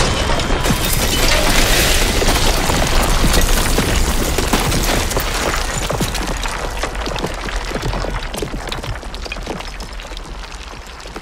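Earthquake and building-collapse sound effects: a deep rumble under a dense clatter of cracking and falling bricks and debris. It is loudest a few seconds in and dies away toward the end.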